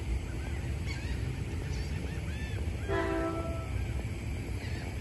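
Air horn of an approaching New Jersey Transit train sounding one short chord blast about three seconds in, over a steady low rumble.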